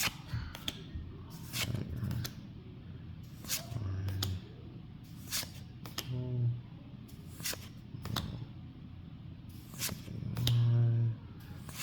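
Trading cards being handled and flipped through from a freshly opened booster pack, giving sharp, irregular clicks and snaps. A few brief, low murmured voice sounds fall between them.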